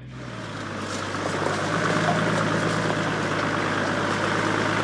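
Toyota Land Cruiser 80 Series engine running as the 4x4 drives slowly along a rutted dirt track, a steady low engine hum with road noise that grows louder over the first two seconds, then holds steady.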